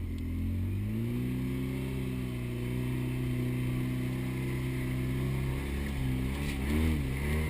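Polaris RZR side-by-side engine pulling under load in low range on a hill climb: the revs rise about a second in, hold steady, then waver up and down near the end.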